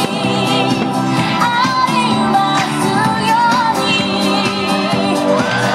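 Pop music with a woman singing in a wavering voice over a held accompaniment.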